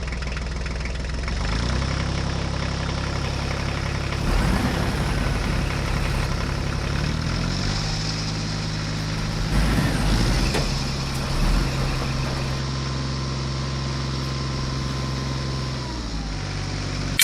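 Heavy diesel engine running, its speed stepping up and down a few times.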